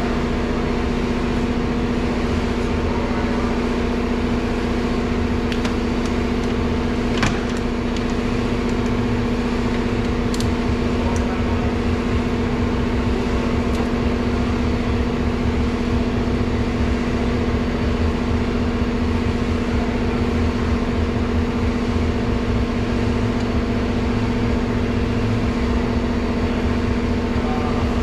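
A loud, steady mechanical drone, like an engine or machine running, with a few light clicks on top, the sharpest about seven seconds in.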